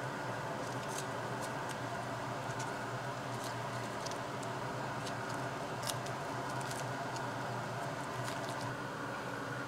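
Scattered light clicks and taps as broccoli florets are set onto ceramic plates, over a steady fan-like background hum.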